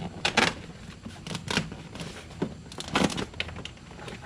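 A handful of short clicks, knocks and crinkles from handling loose parts inside a pickup truck's door, the door speaker and its wiring. The loudest are about half a second in and about three seconds in.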